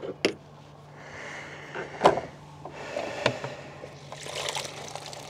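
A few sharp knocks and clunks of gear handled in a boat, then the lid of an insulated bait bucket opened and a rustling as hands reach in near the end. A faint steady low hum runs underneath.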